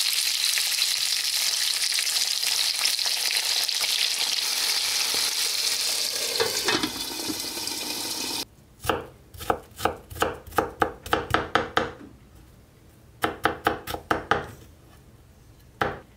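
Fish, clams and cherry tomatoes steam-frying in white wine in a covered frying pan: a steady loud sizzle that cuts off about eight seconds in. After it come two runs of quick knocks, about five or six a second, and one more knock near the end.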